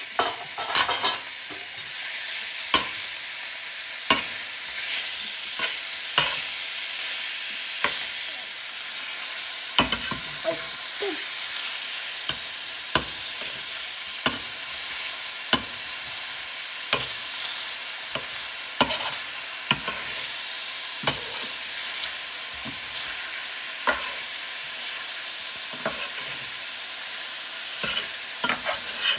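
Thin strips of beef sizzling in hot oil in a stainless steel skillet. A slotted metal spatula stirs the meat, scraping and clicking against the pan every second or two.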